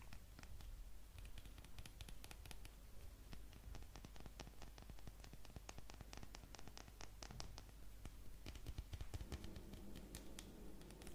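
ASMR fingernail tapping and scratching on an object: many quick, soft clicks, thickest in the middle.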